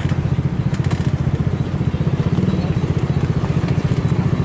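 An engine running steadily with a fast, even low throb.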